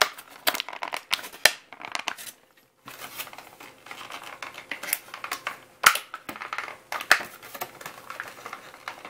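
Stiff clear plastic blister packaging of an action figure crinkling and crackling with sharp clicks as it is handled and pried open. It breaks off briefly about two and a half seconds in, then goes on.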